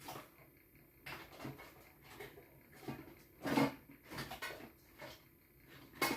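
Handling noises: irregular clicks and knocks of small hard objects being moved about, with some rustling, the loudest knock about three and a half seconds in.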